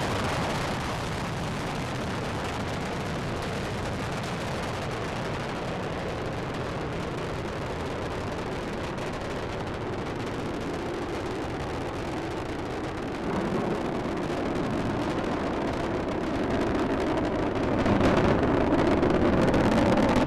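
Space Shuttle Discovery's launch roar from its solid rocket boosters and main engines during ascent: a steady, dense rumble. It grows louder about two-thirds of the way through and again near the end, then cuts off abruptly.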